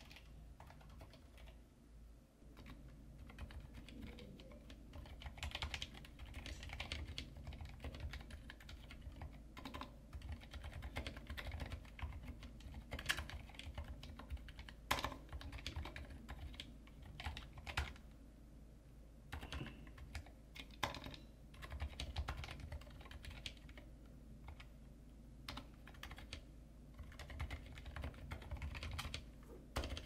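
Typing on a GK64 mechanical keyboard with stock Cherry MX Silent Red linear switches (rubber-dampened), foam in the case and under the plate, and PBT XDA keycaps: a quiet, muted stream of keystrokes with a few louder key strikes.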